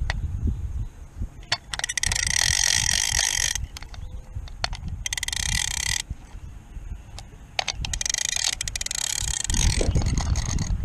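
Vintage fishing reel being cranked to retrieve line, a whirring gear sound in three spells of one to two seconds each, with scattered clicks in between.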